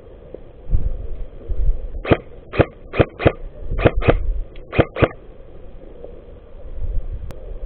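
Airsoft gun firing about eight single shots over three seconds, several in quick pairs, over wind and movement rumble.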